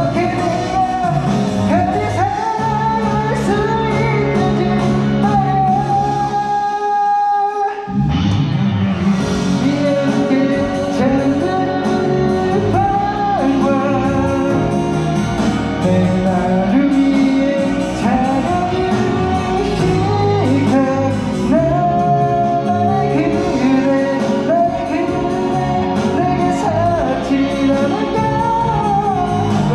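A wedding congratulatory song sung live by one singer over instrumental accompaniment. About seven seconds in, the accompaniment drops out for a moment while the voice holds a long note, then comes back in.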